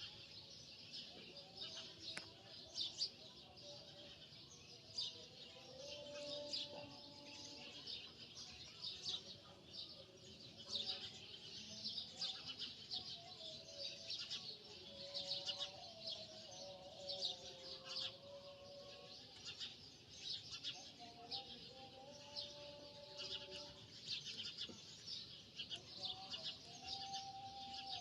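Birds chirping and chattering continuously, rapid and high-pitched, with faint lower held tones that shift in pitch now and then.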